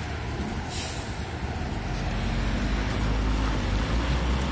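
Diesel engine of a loaded Eicher Terra 25 tipper truck running as the truck pulls past and away; its low rumble grows louder about two seconds in. A brief hiss of air is heard near the start.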